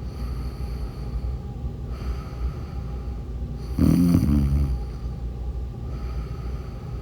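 A woman snoring in her sleep: one loud snore about four seconds in, over a steady low background sound.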